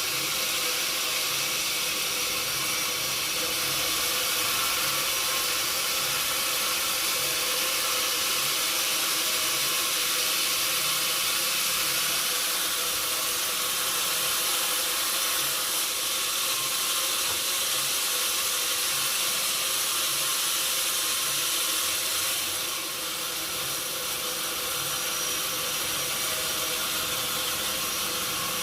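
Sawmill machinery running steadily: an even, high hiss with no breaks, dropping slightly in level about three-quarters of the way through.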